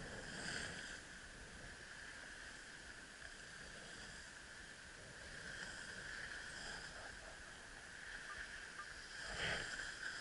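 Skis sliding slowly over packed snow: a steady hiss, with short louder scrapes about half a second in and near the end.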